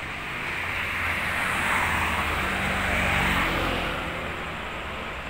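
A car driving past on the road: engine hum and tyre noise that swell for about two seconds and then fade away.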